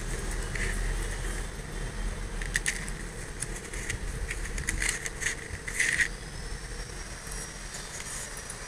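Light clicking and rattling of small beads and bangles as a beaded necklace is handled, a few short clusters of clicks, over a steady low background hum.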